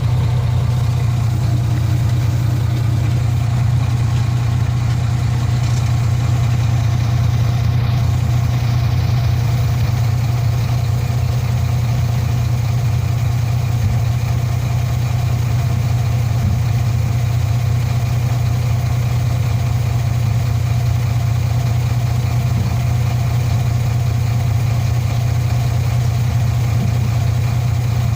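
Heavy diesel engine idling steadily, a constant low drone that holds the same pitch and level throughout.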